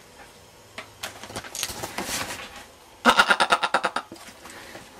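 Rustling handling noise, then about three seconds in a man's short, rapid pulsing laugh lasting about a second.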